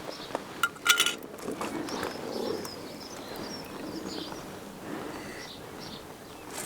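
Sharp metallic clinks about a second in, a paintbrush knocking against the rim of a metal paint tin, then faint bird chirps over outdoor background noise.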